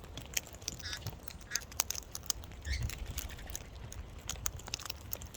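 A feeding flock of wild parrots: many scattered sharp clicks and taps, with a few short faint calls.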